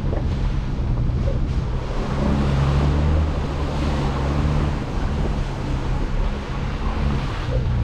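A 4x4's engine running at low revs on a muddy off-road trail, its pitch shifting slightly, under a steady rushing noise.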